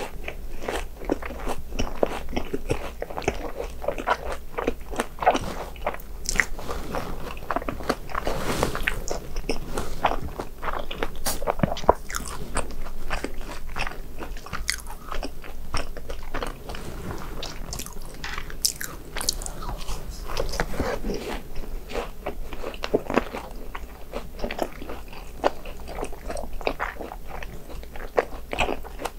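A person biting and chewing crunchy fried snacks, with a continuous run of crisp crunches.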